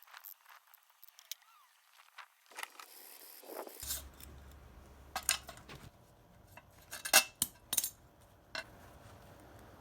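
Scattered light metallic clinks and knocks of small steel parts being handled, the sharpest few about seven to eight seconds in.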